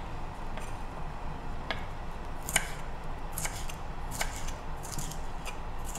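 Kitchen knife slicing young winged beans on a bamboo cutting board: a crisp cut through the pod, then a light tap of the blade on the wood, about one cut a second. The loudest cut comes about halfway through.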